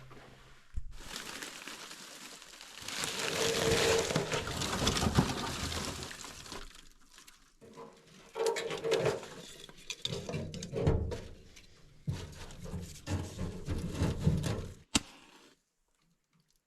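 Dishes and cookware being handled, with irregular bursts of clattering and scraping, and a sharp click just before the sounds stop abruptly near the end.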